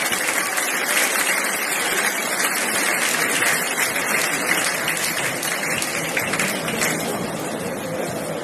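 Crowd applauding, a dense steady clatter of many hands that eases a little near the end.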